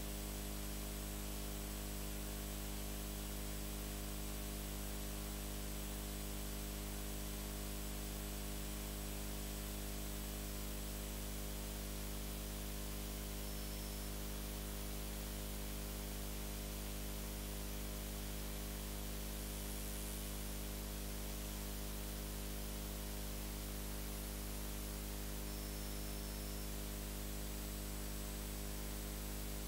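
Steady electrical mains hum with a layer of hiss, unchanging throughout, with no music or other sound over it.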